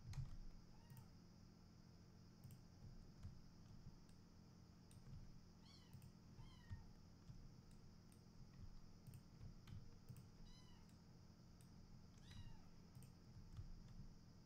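Near silence: faint computer mouse clicks scattered throughout, with a few short faint high calls in the middle and near the end.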